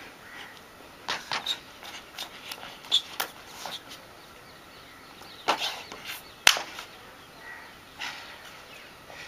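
Irregular sharp slaps and scuffs of a breakdancer's hands and feet striking the ground as he moves through handstands, with a few louder hits about a second in, around three seconds, and in quick succession around five and a half to six and a half seconds.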